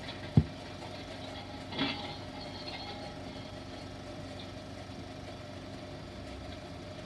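Steady hum and hiss of an old 16mm optical film soundtrack, with a single sharp thump about half a second in and a short, fainter noisy sound near two seconds.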